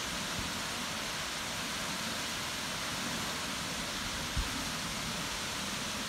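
Steady hiss of a tall waterfall, thin strands of water falling down a rock face into a plunge pool. A brief low thump about four seconds in.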